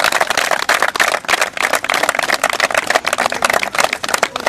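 A crowd clapping: a dense, continuous patter of sharp hand claps, several a second.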